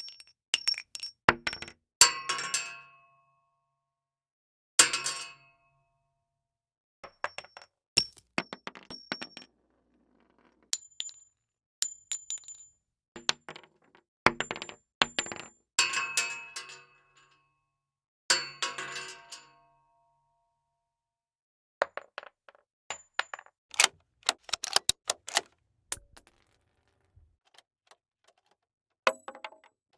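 A series of short metallic sound effects, one after another with silent gaps between them: sharp clicks, clanks and clinks, some with a brief high ring.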